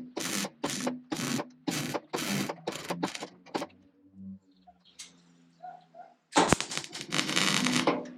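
MIG welder on sheet steel firing about eight short crackling bursts, roughly two a second, then after a pause a longer run of about two seconds near the end. Welding in short stop-start bursts keeps the heat down in the thin tinwork.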